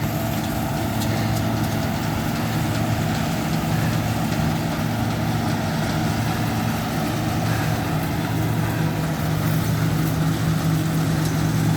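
Combine harvester running steadily while harvesting wheat: a continuous engine sound with a low, even hum and a constant hiss of machinery.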